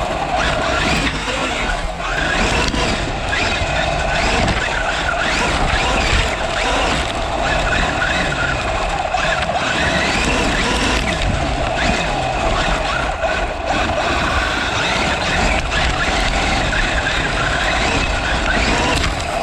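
Electric RC car driving, its motor and gears whining up and down in pitch as the throttle is worked, over steady running noise.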